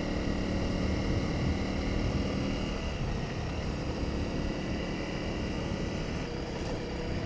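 Honda CRF250 Rally's single-cylinder four-stroke engine running steadily as the bike rides along a gravel road, over a continuous rushing noise of tyres and wind.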